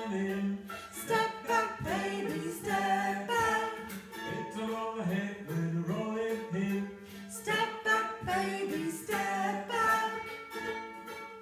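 Unaccompanied group singing of a children's action song, with a low part held beneath the changing tune.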